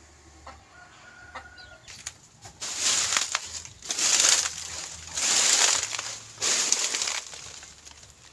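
A hen gives a faint short call, then four loud rushing bursts of noise follow, each under a second long.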